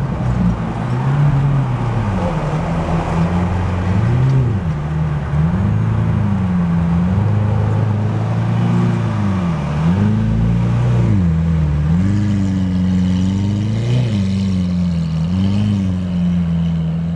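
Lamborghini Aventador LP700-4's V12, fitted with an aftermarket Innotech exhaust, idling, with about half a dozen short throttle blips from about four seconds in. Each rev rises and falls back quickly.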